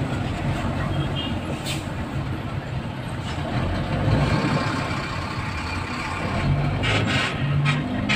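Road traffic heard from inside a vehicle crawling in a traffic jam: a steady low engine drone, with a click about two seconds in and a few short noises near the end.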